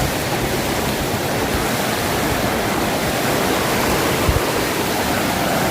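River water rushing steadily over rocks, a constant even hiss.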